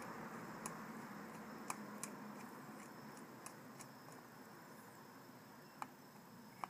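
A handful of faint, irregular clicks of a flat-blade screwdriver against a Keihin carburetor bank while working at a slow jet, over a steady hiss.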